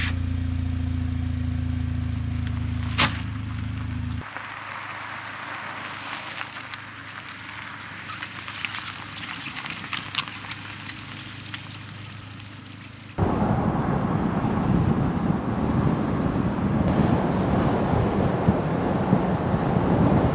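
A steady low hum for about four seconds that cuts off suddenly, then quieter rustling with scattered small clicks. About thirteen seconds in, this gives way abruptly to a loud, rumbling noise like wind buffeting the microphone.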